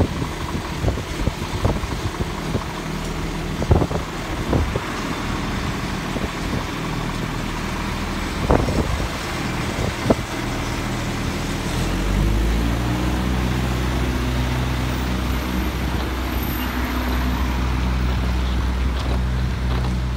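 Scania G410 lorry's six-cylinder diesel engine pulling the articulated truck slowly round a turn, with a few short knocks in the first half. About twelve seconds in the engine note rises and grows louder as the lorry accelerates away.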